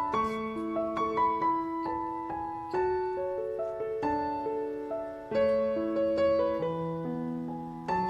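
Background piano music: gentle, slow chords and melody notes that strike and fade away.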